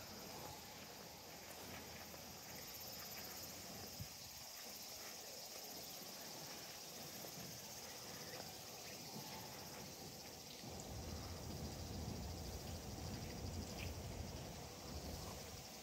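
Footsteps crunching on a gravel path, with a steady high-pitched insect chorus going throughout. A low rumble comes in about two-thirds of the way through.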